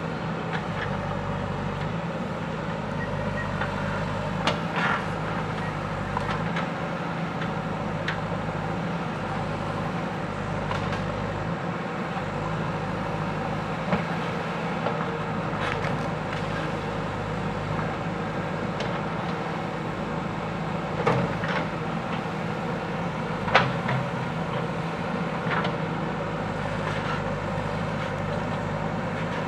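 JCB 3DX backhoe loader's diesel engine running steadily while working, with occasional sharp knocks over it, the loudest about two-thirds of the way through.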